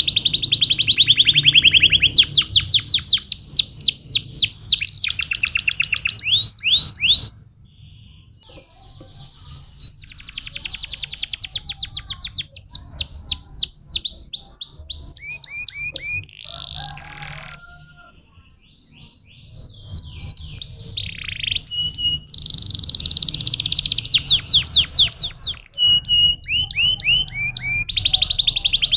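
Domestic canary singing in fast trills and rapid runs of repeated high notes. The song moves from one rolled phrase to the next, with short breaks about seven and eighteen seconds in.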